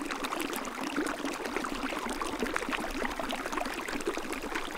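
A small stream babbling steadily, water running over stones in a dense, even patter.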